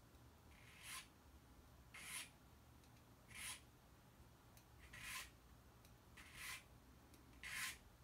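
Hand file rasping across a key blank in six short, light strokes about a second and a quarter apart, cutting down the marked positions while impressioning a key for a wafer lock.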